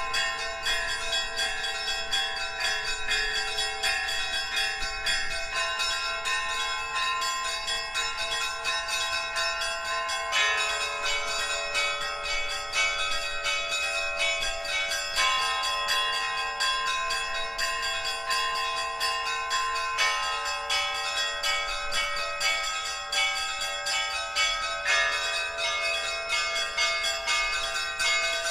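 Orthodox church bells of the Kyiv-Pechersk Lavra rung together in a continuous peal, many bells struck in quick succession. The set of ringing notes changes every five seconds or so.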